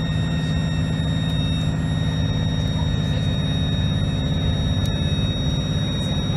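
Single-decker bus's diesel engine running under way, heard from on board: a steady low drone with a thin, constant high-pitched turbo whine above it.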